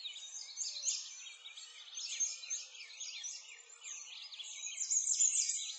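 A dense chorus of small birds chirping and twittering, many quick high calls overlapping without pause, loudest about five seconds in.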